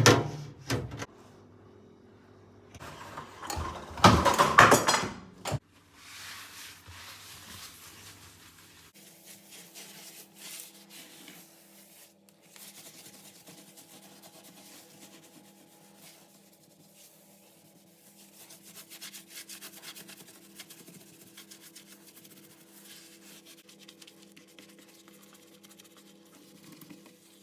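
Hand scrubbing and rubbing while cleaning, with a sharp knock at the start and the loudest, scratchiest scrubbing a few seconds in. Quieter rubbing follows over a faint steady hum.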